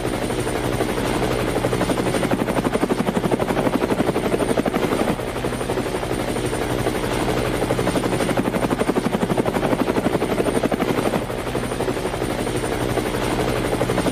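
Large helicopter flying low overhead, its main rotor beating in rapid, even pulses over a steady engine hum. It is loud throughout.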